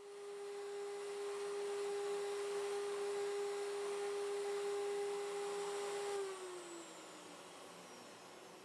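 DIY CNC router spindle whining at a steady high pitch over a steady rushing hiss, then switched off about six seconds in, its pitch falling as it spins down while the hiss carries on.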